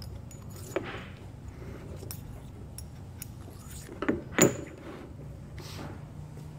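Metal heater probes and an aluminium plate block being handled and knocked together: light clicks and clinks, with two louder clacks about four seconds in.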